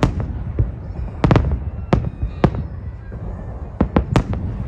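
Fireworks salute bursting: a series of about eight sharp bangs, several in quick succession, over a continuous low rumble.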